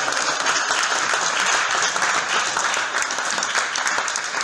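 A congregation applauding: many people clapping their hands at once, steady and loud.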